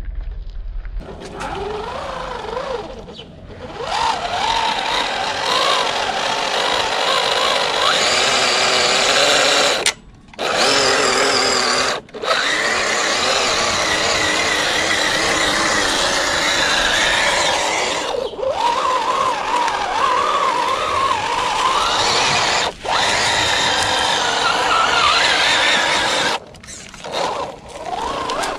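An MST RC crawler's electric motor and gears whining under throttle as it drives through mud and water, the pitch rising and falling as the throttle changes. The sound breaks off abruptly several times, at about ten, twelve, eighteen and twenty-three seconds in.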